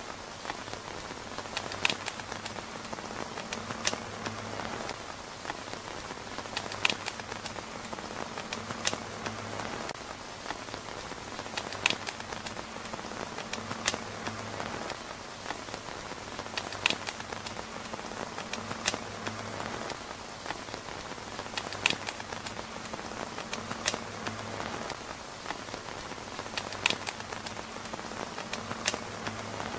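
Steady rain pattering on a tent roof, with sharp ticks of heavier drops or pops every second or two.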